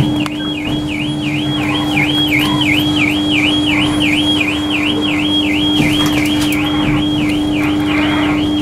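Warbling electronic warning tone aboard a Class 318 electric train, sweeping up and down about three times a second, over a steady hum from the train's equipment.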